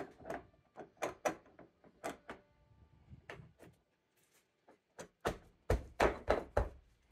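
Irregular metal clicks and knocks as a motorcycle clutch center is worked onto a clutch hub fixed to a wooden board. The heaviest, deeper knocks come near the end.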